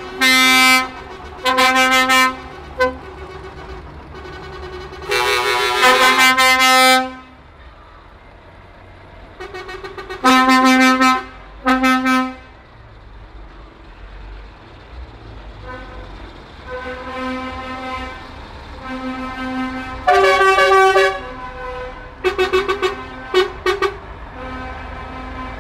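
Lorry horns sounding in a string of blasts as the trucks pass slowly, mostly short toots of a second or less, with one held about two seconds around five seconds in and quicker toots near the end; more than one horn pitch is heard. A low diesel engine rumble runs underneath.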